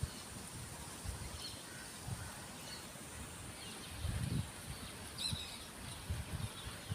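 Birds chirping: short, scattered high calls, with a clearer burst of chirps about five seconds in, over a steady outdoor hiss. A few soft low bumps sound beneath them.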